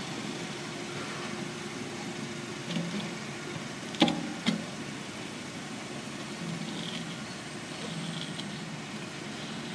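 Forklift engine idling steadily, with two sharp knocks about half a second apart near the middle.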